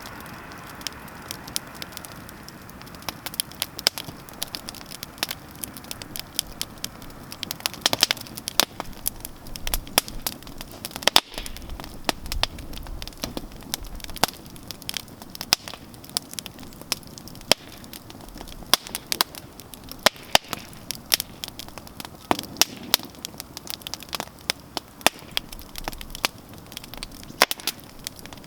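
Wood campfire burning, with sharp irregular crackles and pops over a steady soft hiss.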